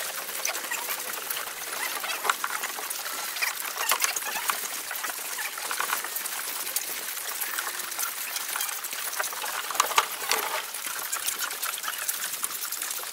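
Calves sucking milk from the teats of a shared calf feeder: continuous wet slurping with many small clicks and squelches, and a few sharper clicks, the loudest about ten seconds in.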